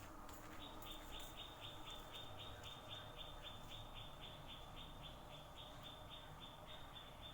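A faint high chirp repeated steadily, about four to five times a second, starting just under a second in.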